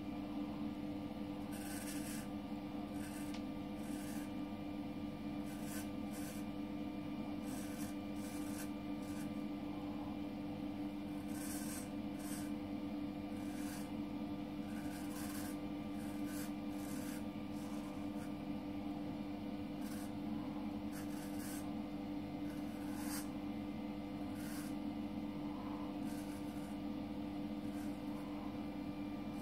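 Thiers Issard straight razor scraping through lathered stubble in many short, irregular strokes, over a steady low hum.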